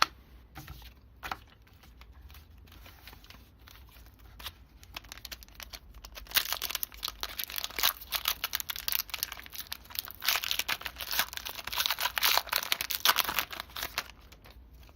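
Foil Pokémon Lost Thunder booster pack crinkling as it is torn open and handled. A few light ticks come first, then a dense crackle from about six seconds in until near the end.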